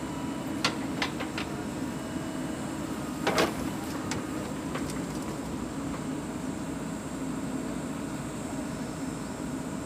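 JCB 3DX backhoe loader's diesel engine running steadily under load as the backhoe digs and lifts a bucket of soil. A few sharp knocks come about a second in, and a louder clank comes about three and a half seconds in.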